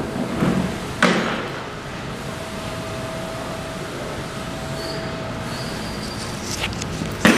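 Steady workshop background noise with a faint steady hum, broken by a sharp knock about a second in and another near the end.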